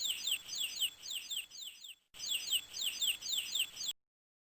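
A bird calling: a quick series of high chirps, each sweeping down in pitch, about three a second. There is a short break about two seconds in, then the chirps resume and cut off suddenly about four seconds in.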